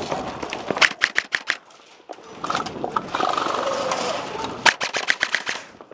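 Airsoft guns firing two strings of rapid shots, one about a second in and another near the end, with distant shouting between them.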